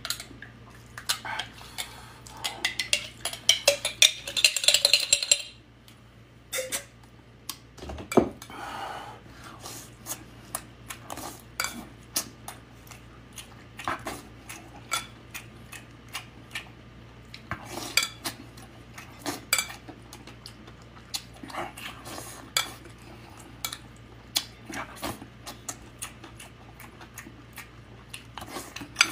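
A metal spoon scraping and clinking inside a glass jar of fermented tofu for the first five seconds or so, then scattered light clicks of the spoon on the plate and the soft smacks of chewing.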